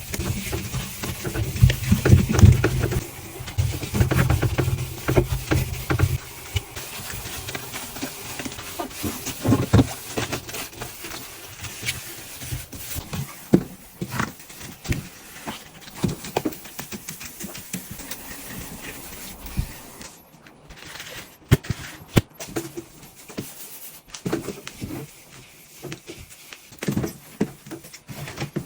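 Household cleaning sounds as a refrigerator is washed out: scattered knocks, clicks and handling of objects, with a low rumble through the first few seconds.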